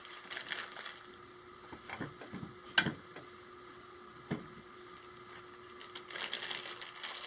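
Hands working a toy bear-stuffing set: rustling of the loose stuffing and plastic parts, with one sharp plastic click about three seconds in and a smaller one a little past four seconds.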